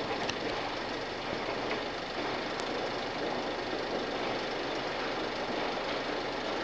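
Steady din of distant engines and dockside machinery, with a couple of faint clicks.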